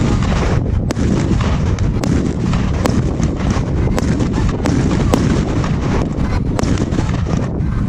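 A 100-shot 1.3G compound firework cake firing: a rapid stream of sharp bangs and cracks, several a second, over a continuous low rumble.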